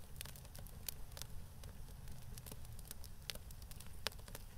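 Faint, irregular crackling: scattered sharp clicks, a few to several a second, over a low rumble.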